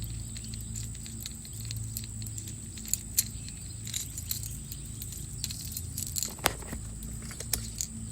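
Irregular small clicks and rattles of a lipless crankbait and line being handled while a fishing knot is finished, with a few sharper clicks among them, over a steady low hum.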